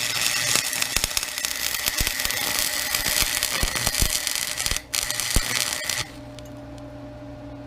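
Welding on steel: two runs of dense arc crackle and sizzle, the first about five seconds long, then a short break and a second run of about a second. After that only a steady electrical hum is left.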